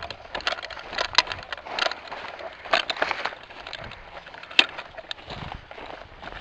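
Footsteps crunching and snapping through dry twigs, leaves and brush in an irregular run of crackles, with one sharper crack about four and a half seconds in.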